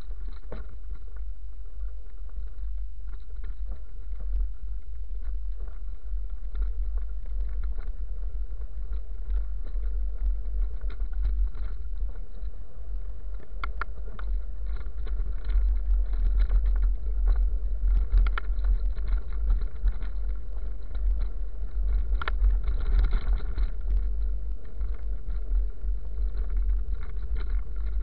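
Riding a bicycle over a gravel road: a steady low rumble of wind and vibration on the handlebar camera's microphone, with the crunch of tyres on gravel and scattered sharp clicks. The rumble grows louder about halfway through.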